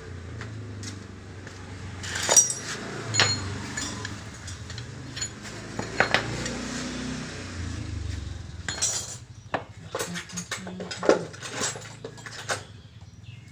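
Irregular metal clinks and knocks as steel parts of a scooter's CVT pulley and a wheel axle are handled, the axle being set into the pulley to drive out its collar bushing.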